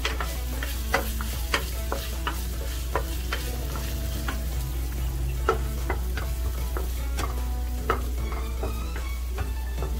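Curry leaves frying in hot oil in a pan, sizzling while a spatula stirs, with frequent sharp taps and pops scattered irregularly throughout, over a steady low hum.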